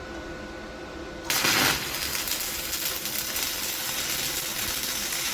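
Stick-welding arc with a coated electrode struck about a second in: a short louder burst as the arc catches, then a steady crackle as the weld runs.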